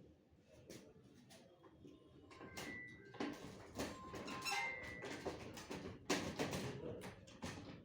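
Irregular clicks and knocks of parts being handled during printer repair, with a few short high squeaks, busier from about two seconds in.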